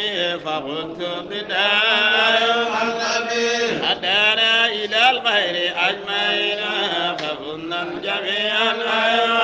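Male devotional chanting of an Islamic qasida, melodic lines rising and falling over a steady held low note.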